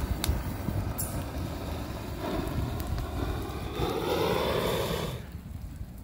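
XM42 handheld flamethrower spraying a stream of burning fuel: a rushing flame over wind rumble on the microphone. It grows louder about two seconds in and cuts off about a second before the end.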